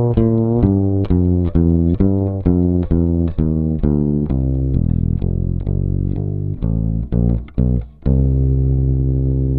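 NS Design WAV4 electric upright bass, amplified through its pickup, playing a simple walking bass line in C at about two notes a second. Near the end a few quick notes lead into a final low note that is left ringing.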